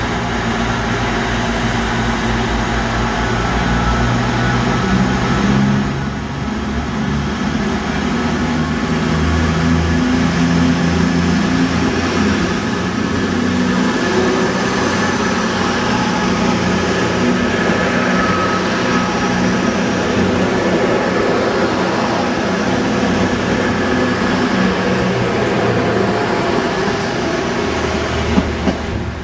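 CrossCountry Voyager diesel multiple unit running close by at a station platform: its underfloor diesel engines give a steady hum whose pitch shifts a few times, along with rail and wheel noise.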